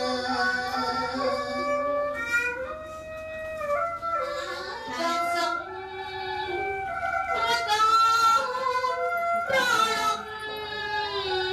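Slow Khmer traditional wedding song: a high voice singing long, gliding notes.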